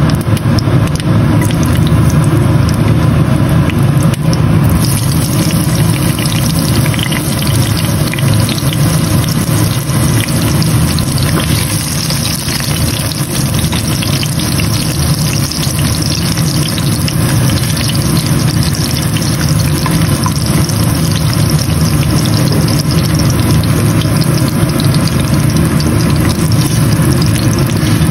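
Ginger slices sizzling in hot oil in a frying pan, the hiss getting stronger about five seconds in, over a steady low hum.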